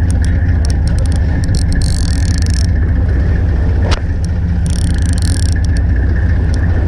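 Steady drone of a fishing boat's engine, with faint clicks and whirring from a baitcasting reel winding in line against a fish. A single knock sounds about four seconds in.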